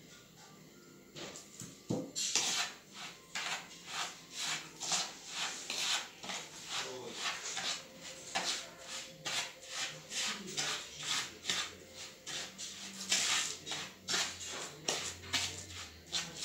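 Millet, sugar and melted butter being stirred and scraped round a bowl, in a steady rhythm of about two strokes a second that starts about a second in.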